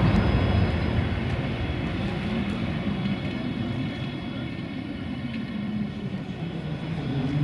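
Tatra KT4DM tram pulling away along street track, its running rumble fading as it moves off.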